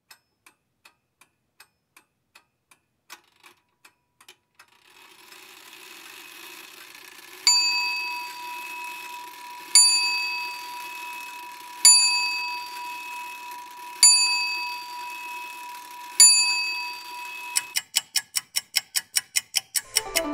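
Clock ticking faintly, a few ticks a second. Then, over a steady hiss, a small bell struck five times about two seconds apart, ringing on between strikes. Near the end it gives way to a fast run of ticks.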